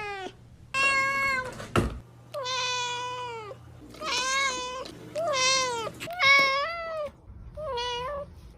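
A domestic cat meowing repeatedly, about seven meows in a row, several of them long and drawn out with a falling pitch.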